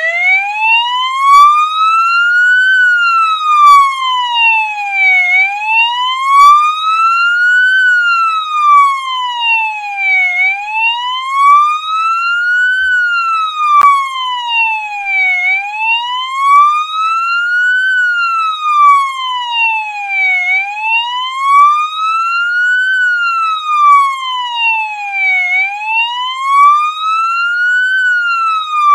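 Police siren sounding in wail mode: one tone sliding slowly up and then back down, rising over about three seconds and falling over about two, repeating steadily about six times.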